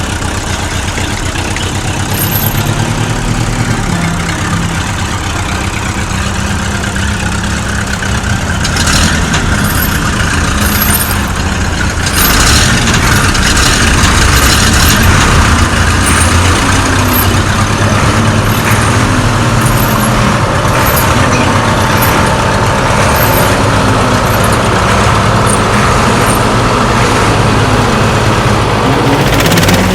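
Steady engine-like rumble of a vehicle running, louder from about twelve seconds in, with a wavering tone rising and falling every couple of seconds in the second half.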